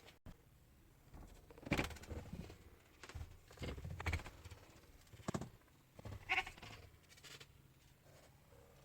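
Cats yowling at each other in a fight, a series of drawn-out calls, several of them loud.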